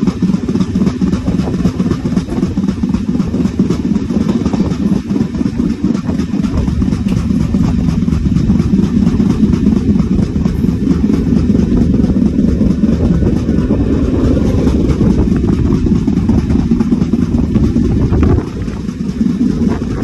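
Class S13 train running at speed: a steady low rumble of wheels on rail, with the rapid repeated pounding of a flat wheel, the mark of a flat spot worn onto the wheel tread.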